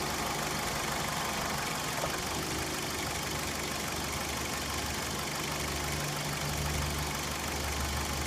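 2004 Dodge Stratus 2.4-liter four-cylinder engine idling steadily with a random misfire, which the mechanic traces to an arcing boot on the number 4 spark plug wire.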